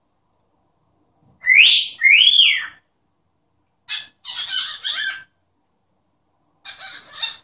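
Cockatiel giving two loud whistled notes, the first rising and the second arching up and down, then two short bursts of scratchy chatter.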